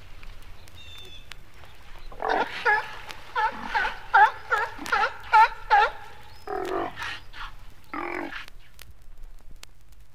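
Sea lions barking: a quick run of about a dozen short, pitched barks, then two lower, longer calls. Faint record-surface clicks and a low hum sit underneath.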